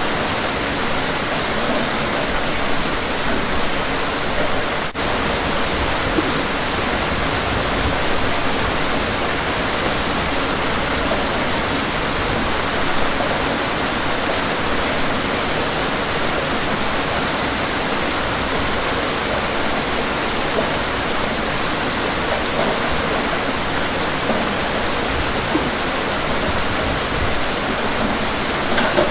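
Steady rain from a rainstorm, an even unbroken hiss, with a brief dropout about five seconds in.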